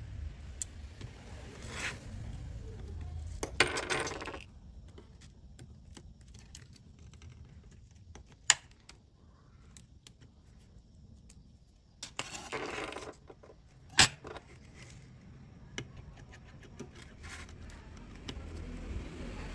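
Small metal repair tools and phone parts handled on a wooden table: light clicking and clatter, with two short rattling scrapes and two sharp clicks as a precision screwdriver and tweezers are set down and parts are lifted out.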